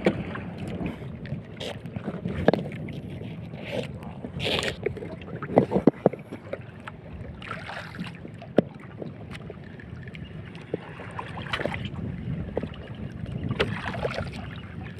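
Wind on the microphone and choppy water washing against a small outrigger boat, with scattered sharp clicks and knocks, the loudest a quick cluster about six seconds in.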